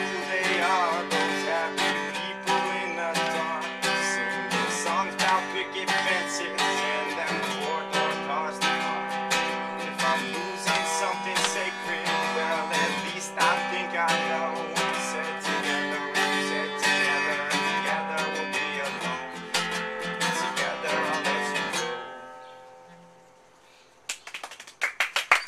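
Steel-string acoustic guitar strummed in a steady rhythm, ending on a final chord that rings and fades out. About two seconds later, hand clapping starts.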